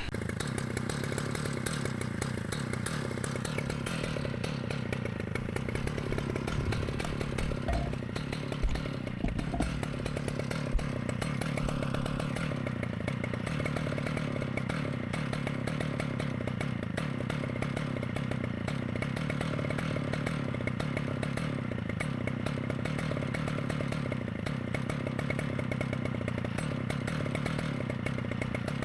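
Large two-stroke chainsaw running steadily under load, slicing cross-section cookies from a big ash stump, with a few brief knocks about eight to eleven seconds in.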